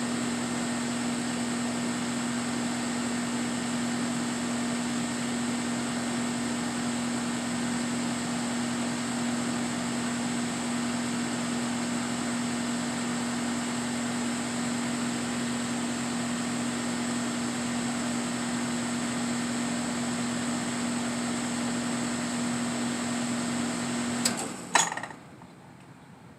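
Air conditioner running with a steady low hum and a thin high-pitched whine over a rushing of air, a noise that the owner takes for abnormal. Near the end two sharp clicks, and the sound stops.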